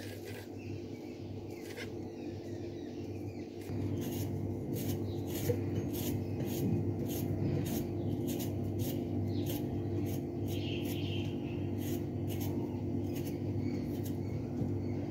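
Small kitchen knife peeling a vegetable by hand in short, crisp scraping strokes, about two a second, over a steady low hum.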